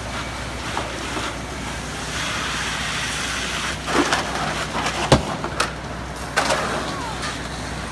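Steady low engine hum with a swell of hiss, and several sharp cracks and knocks about halfway through.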